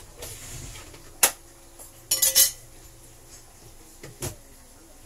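Metal utensil knocking and clinking against a cooking pan of curry: one sharp knock about a second in, a quick clatter of several knocks a second later, and a lighter knock near the end.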